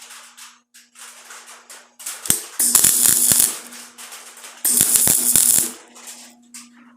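A welder laying two short, crackling bursts of weld, each about a second long, filling rust pit holes in car body sheet metal.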